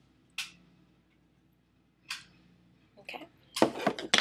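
Makeup handling noise: two brief soft hissy rustles, then a burst of sharp clattering and knocking near the end as the eyeshadow palette and tools are moved about close to the microphone.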